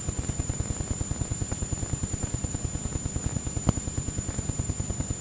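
Background noise of an old home tape recording with no singing on it: a rapid, even low throb of about ten pulses a second under a steady thin high-pitched whine, with a sharp click a little over halfway through.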